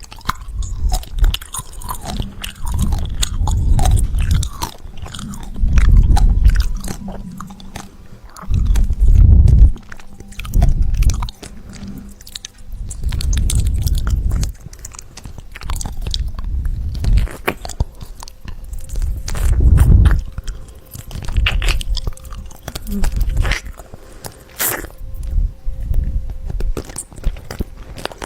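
Close-miked chewing and crunching of crunchy food, bite after bite with crisp cracks and wet mouth sounds, in uneven bursts every second or two.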